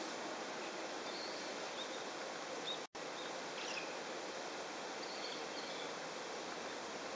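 Steady outdoor background noise with a few faint, short, high bird chirps now and then; the sound drops out completely for an instant about three seconds in.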